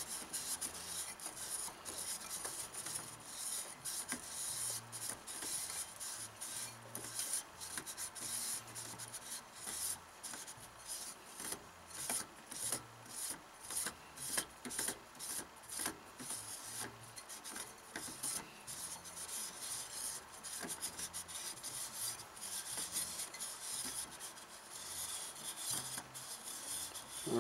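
A hand spinning a Midwest Industries aluminium free-float handguard onto its threaded barrel nut: quick, repeated dry rubbing and scraping strokes of palm on the slotted rail as it turns on the Loctite-coated threads.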